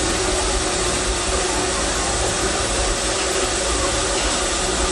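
Steam hissing steadily from around the cylinder of a Vulcan steam locomotive, an even, unbroken hiss with no exhaust beats.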